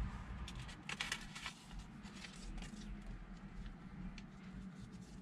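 Rustling and crinkling of a small paper packet from a screen protector kit as it is handled and opened by hand, with a cluster of sharper crackles about a second in, over a low steady hum.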